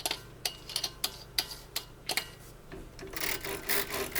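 Manual typewriter's ribbon mechanism clicking as the ribbon is wound onto the take-up spool: a string of light, irregular mechanical clicks, turning into a denser rasping sound near the end.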